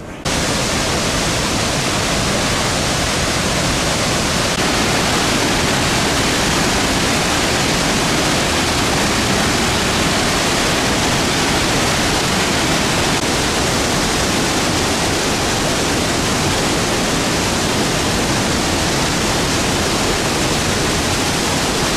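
Steady roar of heavy falling water at a large waterfall, Victoria Falls, an even noise with no breaks that cuts in suddenly at the start.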